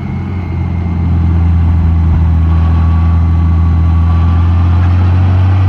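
Honda Gold Wing motorcycle running at a steady speed, a loud, even low engine hum with road noise and no change in pitch.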